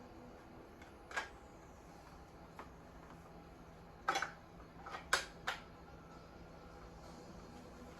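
Handling clicks and knocks from an airsoft AK rifle and its parts being fitted together by hand: one sharp click about a second in, then a quick run of four more between about four and five and a half seconds.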